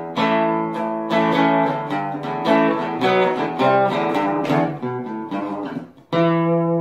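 Acoustic guitar music: a run of picked notes, then a full chord struck about six seconds in that rings on.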